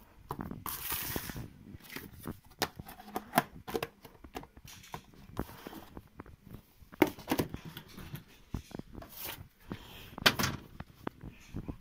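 Scattered clicks, knocks and rustles of a clear plastic food container being handled, and a refrigerator door being opened.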